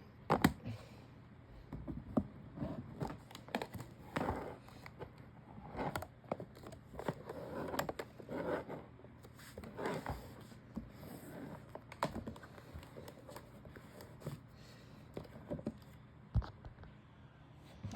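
Irregular knocks, clicks, scrapes and rustles of handling, over a faint steady low hum.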